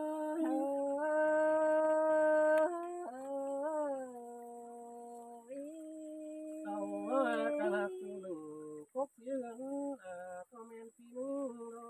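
Unaccompanied Thai folk singing (khắp) of northern Vietnam: a voice holds long drawn-out notes that slide and waver, in phrases with short breaths between them. Phrases become shorter and broken up in the second half.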